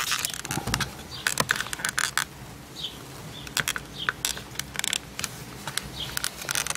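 Hand-held trigger spray bottle squeezed several times, short hissing spurts with clicks of the trigger and handling in between.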